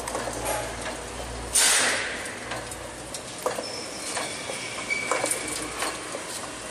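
APF-200 hamburger patty forming machine running, with a low steady hum and irregular metallic clicks and clanks from the forming mechanism and wire-mesh conveyor. A sudden loud hiss about a second and a half in fades within half a second.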